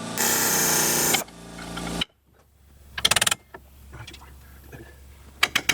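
Air compressor running, then shutting off abruptly about two seconds in as its tank fills. A pneumatic tool then rattles in a short burst about three seconds in and in several quick bursts near the end, hammering at a stuck part of a hydraulic cylinder.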